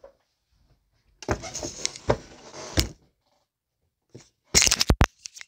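Rustling and shuffling close to the microphone as a person moves into place and sits down, with a few knocks, then a quick cluster of sharp clicks and knocks near the end.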